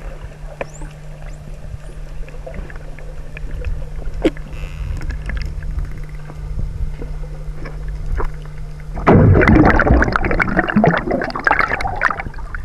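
Underwater sound of a boat's engine carried through the water as a steady low hum, with a few faint clicks. From about nine seconds in, a loud rush of bubbles and splashing comes from a snorkeler swimming close past.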